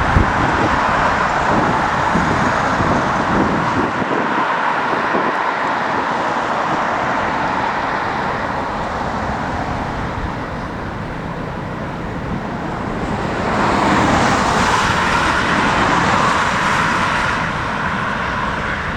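Jet engine noise from airliners taking off, a steady broad rush with wind rumbling on the microphone; it swells for a few seconds about two-thirds of the way through.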